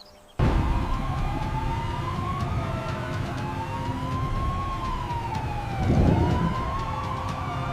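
Siren wailing, its pitch gliding slowly up and down, over a loud low rumble; it starts abruptly about half a second in.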